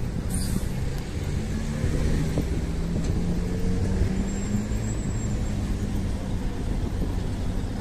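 Coach bus engine idling close by, a steady low hum, over general road traffic.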